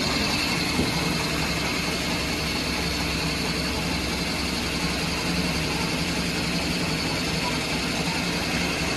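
Belt-driven nixtamal corn mill (molino de maíz) running steadily, grinding cooked corn into masa.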